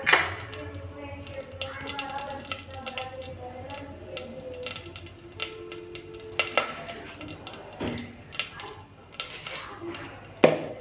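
Steel pots and utensils clinking and clanking, with a sharp metal clank at the start and another near the end; faint voices in the background.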